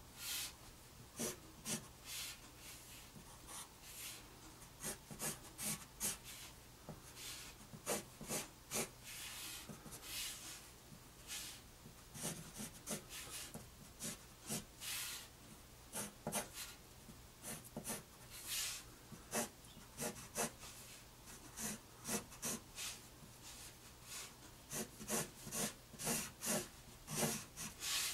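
Graphite pencil drawing on paper: many short scratching strokes in quick runs, some harder and louder than others, with brief pauses between runs.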